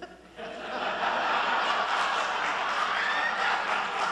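An audience in a hall laughing together, starting about half a second in and holding steady.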